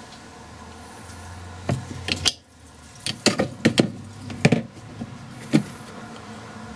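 A run of irregular sharp clicks and knocks from spanner work on a wheel stud being drawn into an MGA rear hub, with a low hum under the first couple of seconds.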